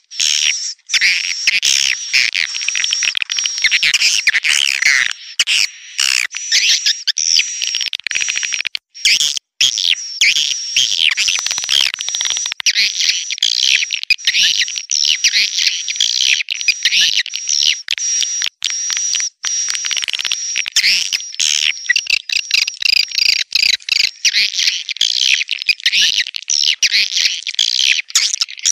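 Swiftlet calling sound: a dense, continuous chorus of high twittering swiftlet chirps with a thin steady high tone running through it, broken by a couple of brief gaps about nine seconds in. It is a lure call, played to draw swiftlets into a swiftlet house.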